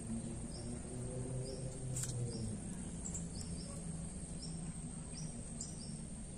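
Outdoor ambience with a steady high insect whine and a run of short, high chirps about twice a second, over a low steady hum. A single sharp click comes about two seconds in.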